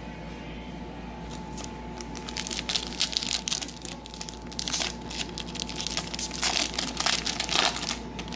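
Foil wrapper of a trading-card pack crinkling and crackling as it is handled and torn open, in irregular bursts from about a second in until near the end.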